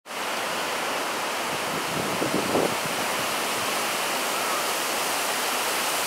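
Strong typhoon wind blowing steadily through trees and bushes, an even rushing hiss of leaves, with a brief stronger gust about two and a half seconds in.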